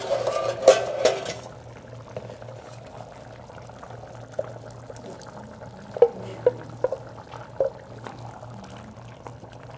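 Diced potatoes sliding from a metal pan into a pot of stew, a rushing splash in the first second and a half, then a few light knocks of the spoon and pan over a low steady hum.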